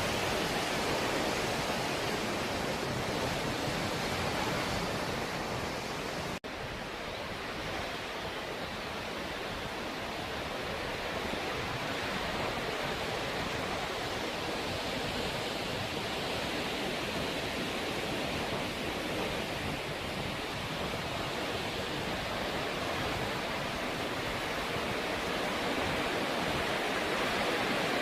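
Ocean waves washing onto the shore in a steady, continuous rush of surf, with a momentary dropout about six seconds in.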